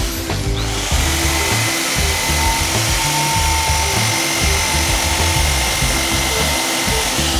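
Electric drill spinning a wire wheel brush against a rusty steel wrench, a steady whine with scrubbing, starting about a second in. Background music plays throughout.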